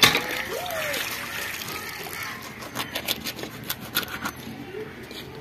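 Water running from a pump spout and splashing onto raw chicken pieces in a metal bowl as they are rinsed, with scattered clicks and splatters.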